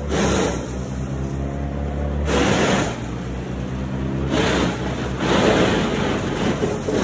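Load of wood chips sliding and pouring out of a raised dump trailer bed in several rushing surges, over the steady hum of a running vehicle engine.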